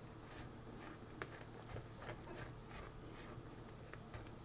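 Silicone spatula stirring flour into cookie dough in a glass bowl: faint, irregular soft scrapes and taps, a few a second.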